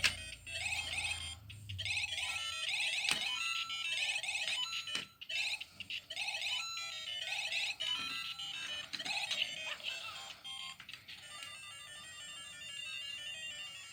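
The electronic Lego Super Mario figure's small speaker playing its beeping, game-style course music and sound effects, with a few sharp knocks of plastic on plastic.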